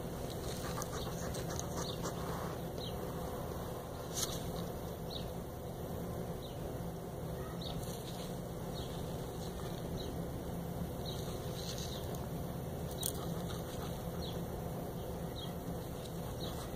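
A porcupine moving about on gravel: faint scattered clicks and rustles, with a sharper tick about four seconds in and another past the middle, over a steady low hum.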